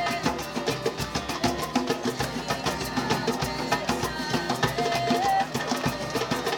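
Acoustic folk jam: several steel-string acoustic guitars strumming over a quick djembe rhythm, with a bowed cello and violin carrying held melody notes.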